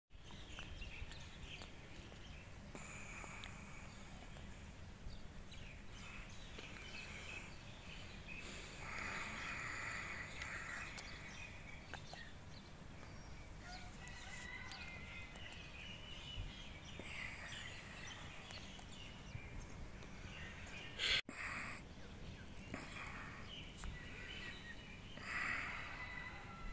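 Outdoor park ambience: a steady low background hum with birds chirping on and off. A single sharp click about three-quarters of the way through.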